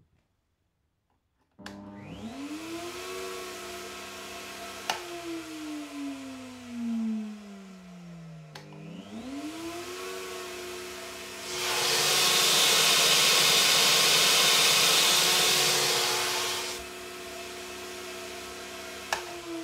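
Makita RP2301FC router mounted under a router table, switched on with a click and spinning up to speed. It is switched off and winds down, restarts, and near the end is switched off again and winds down. A louder rushing noise covers the motor for about five seconds in the middle.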